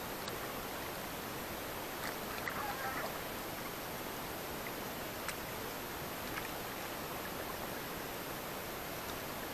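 Steady, even hiss of water and wind around a small wooden canoe, with a few faint clicks.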